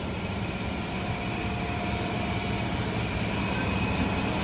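Steady mechanical hum with an even hiss, a constant machine running in the background, growing slightly louder.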